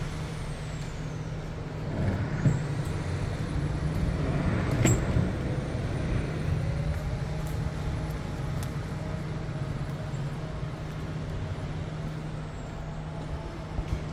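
Heavy vehicle's diesel engine running with a steady low hum, with a single sharp clank about five seconds in.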